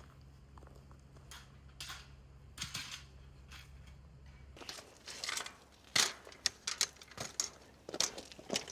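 A low steady hum that stops about halfway, then a quick run of sharp clicks and knocks from objects being handled.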